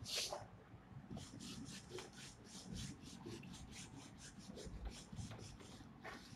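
A whiteboard eraser wiped quickly back and forth across a whiteboard: a faint rubbing hiss in rapid strokes, about four or five a second.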